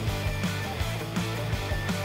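Background rock music with a steady beat.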